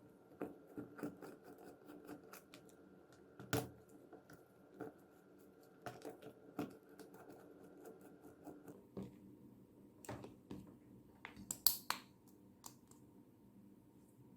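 Irregular light clicks and taps of hand tools and small parts of a mini angle grinder being handled on a bench, with a sharper knock about three and a half seconds in and a quick cluster of clicks near the end.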